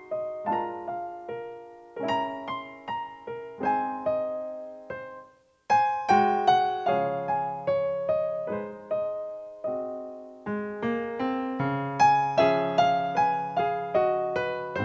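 Solo piano music, notes struck one after another and left to fade. It stops briefly about five and a half seconds in, then resumes with denser notes over a lower bass line.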